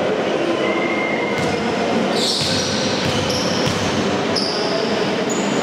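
Shoes squeaking on an indoor court floor, short high-pitched squeals again and again, over the steady hubbub of a sports hall.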